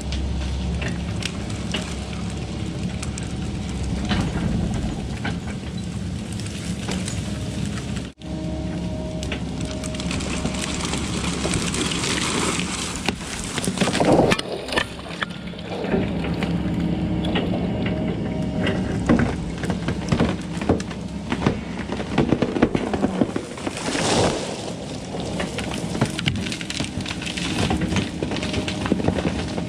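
Volvo 140 excavator's diesel engine running steadily under the crackle and snap of branches and brush breaking as the machine tears down trees, with louder bursts of cracking about halfway through and again later on. The sound drops out for an instant about 8 seconds in.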